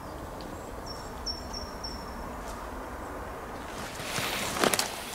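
Faint forest quiet with a few short, high, thin bird calls in the first half, then footsteps crunching and rustling through dry leaf litter from about four seconds in.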